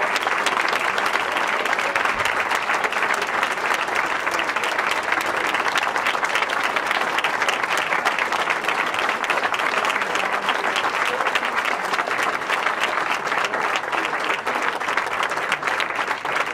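Crowd applauding: a long, steady round of hand-clapping.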